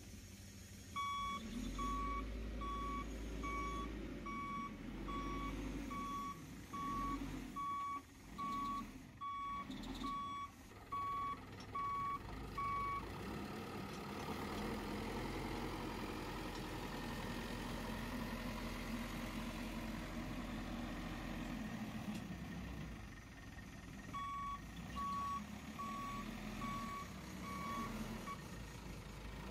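Backhoe loader's reversing alarm beeping a little under twice a second for about twelve seconds, then again for a few seconds near the end, over the machine's engine running.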